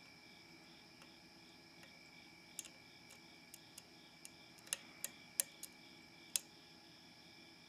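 Scattered sharp metallic clicks of a dimple pick and tension wrench working the pins of a Mul-T-Lock C10 padlock's dimple-key core, coming more often in the second half, as pins set.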